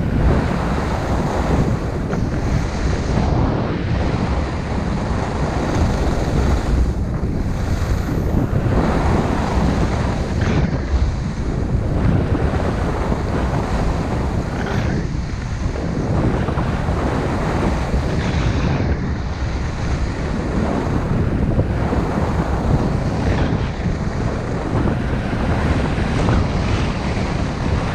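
Wind rushing over a GoPro's microphone during a ski descent, mixed with skis sliding on groomed snow. The loud, steady noise swells and eases every few seconds.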